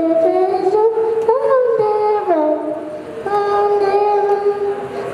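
A young child singing a slow melody into a microphone, holding long notes that step up and down in pitch, with a short break about three seconds in.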